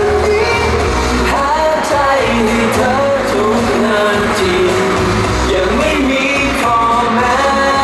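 Thai pop song sung by male voices over a band backing with a steady bass line and drum beat.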